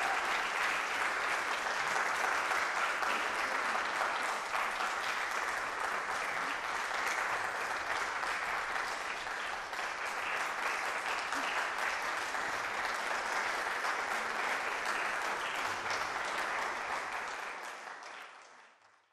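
Audience applauding steadily, a dense patter of many hands clapping, fading out near the end.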